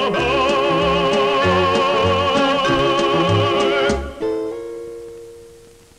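Baritone holding the song's final note with a wide vibrato over instrumental accompaniment with a bouncing bass line. The music stops together about four seconds in, and a last chord rings and fades out.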